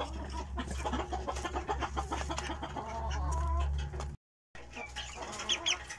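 Young chickens clucking and cheeping while pecking feed from a wooden trough, with many quick taps of beaks. The sound cuts out completely for a moment about four seconds in.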